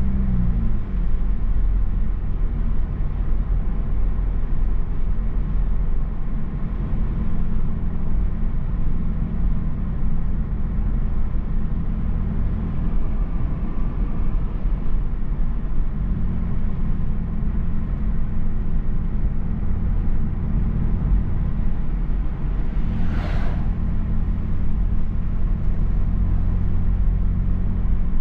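Cabin noise of a Mazda3 Turbo driving along: a steady low rumble of engine and tyres, with the engine note dropping in pitch near the start as the car eases off. A brief hiss about three quarters of the way through.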